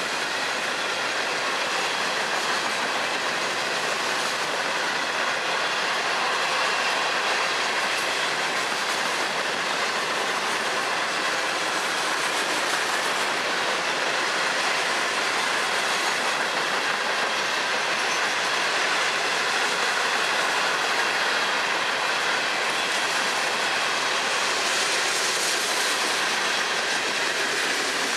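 Freight cars of a Florida East Coast train, hopper and tank cars, rolling steadily past on steel wheels and rail: a continuous rumble of wheels over the track with a faint high ringing.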